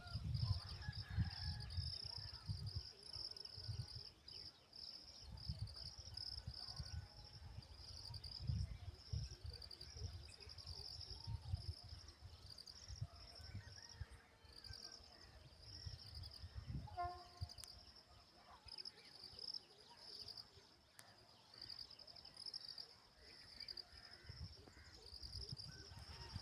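Insects chirping in rapid, high-pitched pulsed trills, almost without a break, with faint scattered bird calls and irregular low rumbles underneath.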